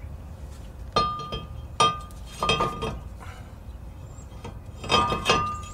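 New cast-iron front brake rotor clanking against the hub and wheel studs as it is fitted onto the hub, about five sharp knocks, each ringing briefly like a bell.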